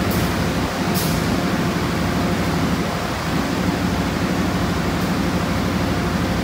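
Diesel-electric locomotive (KAI CC 201) idling at a station platform: a steady low engine hum with a fast, even pulse over a wash of background noise. A couple of faint clicks come in the first second.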